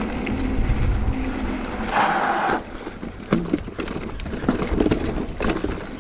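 Electric mountain bike ridden along a dry, rocky dirt trail: wind buffets the microphone while the tyres crunch over dirt and rocks and the bike rattles and knocks, with a short hiss about two seconds in and sharper knocks in the last few seconds.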